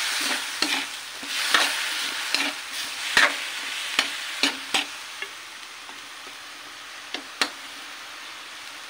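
Bitter gourd and chicken sizzling in an aluminium wok while a spatula stirs them, knocking and scraping against the pan every half-second or so. After about five seconds the stirring stops apart from two knocks near the end, and the sizzle dies down to a faint hiss.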